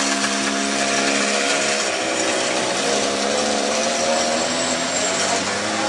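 A small engine running steadily, its pitch wavering slightly, over a steady hiss.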